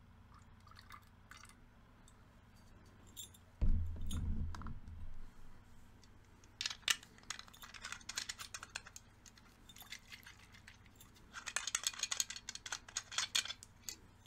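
A glass liquor bottle and a metal hip flask being handled: a dull thump a little under four seconds in, then two runs of small sharp metal and glass clicks and clinks.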